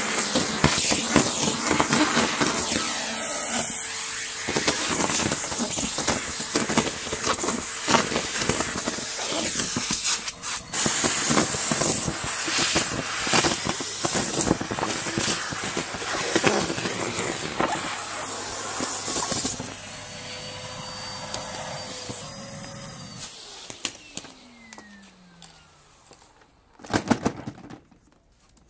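Henry 160 vacuum cleaner running with leaves and grit crackling and rattling up its hose. About twenty seconds in the crackling stops, and after a few seconds the motor's whine falls steadily in pitch as it winds down. A brief clatter follows near the end.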